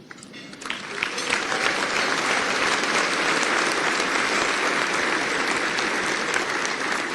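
An audience applauding. The clapping builds over the first second, holds steady, and eases slightly near the end.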